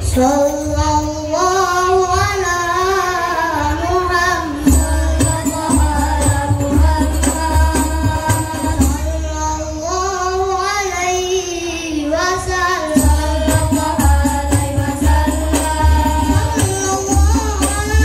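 A boys' sholawat banjari group singing: the ornamented sung melody opens without accompaniment, then about four and a half seconds in, the hand drums and the big bass drum come in and keep a steady beat under the singing.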